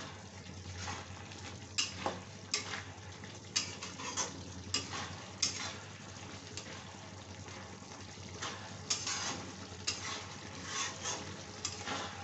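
Metal spatula scraping and knocking against a steel kadai as sliced okra and onions are stirred, irregularly, over a steady sizzle of frying.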